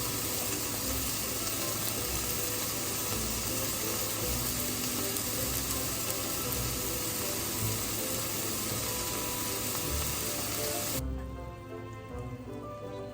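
Food sizzling as it fries, a steady hiss; about eleven seconds in it cuts off abruptly to background music.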